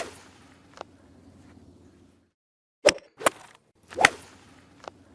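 An edited sound-effect sequence heard twice: two sharp clicks, then a louder hit that swells and trails off into a low rumble, with a small click after it. A short gap falls between the two runs.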